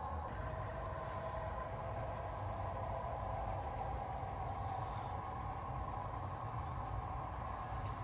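HO-scale model trains running on the layout: a steady low rumble with a mid-pitched hum that holds even throughout.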